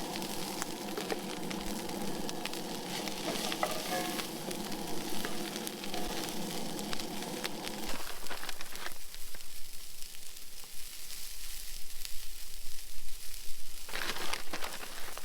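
Egg and steak scramble sizzling and crackling in a frying pan. A steady low hum under it stops about eight seconds in, leaving the crackling sizzle, with two louder noises near the end.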